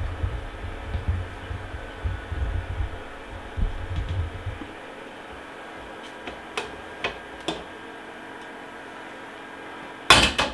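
Stovetop pressure cooker being opened: low handling thumps, then a few sharp clicks as the locking lid is turned, and a loud metal clatter about ten seconds in as the lid comes off.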